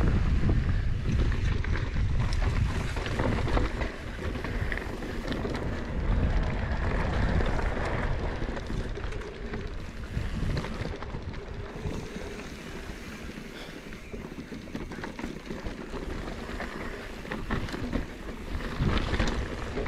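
Wind buffeting the microphone over the rumble of mountain-bike tyres on a rough dirt trail, with scattered clacks and rattles. The noise eases somewhat in the middle and picks up again near the end.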